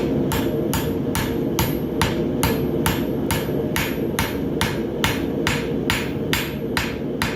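Farrier's hammer striking a white-hot horseshoe on the anvil in a steady rhythm, about two to three blows a second, forge-welding the bar of a bar shoe. A steady low rumble runs underneath.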